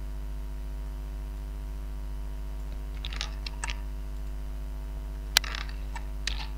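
Steady electrical mains hum, with a few scattered computer keyboard and mouse clicks, the sharpest a little after five seconds in, as text is selected, copied and pasted.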